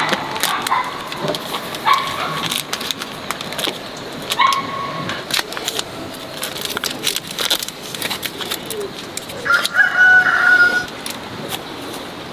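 A rooster crows once, about ten seconds in, the loudest sound, with a few shorter calls before it. Light clicks and rustling come from oyster mushroom clusters being picked off plastic grow bags.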